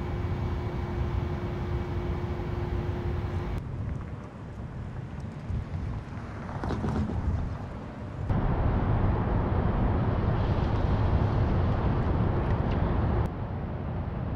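Outdoor ambience in several short shots: a steady low rumble, like distant traffic or wind on the microphone, that changes abruptly at each cut, about a quarter of the way in, just past halfway and near the end. A faint steady hum runs through the first few seconds.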